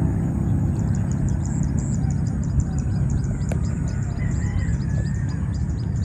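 Open rice-paddy ambience: a steady low rumble of wind on the microphone, with a quick run of high chirps from small birds throughout and a single sharp click about three and a half seconds in.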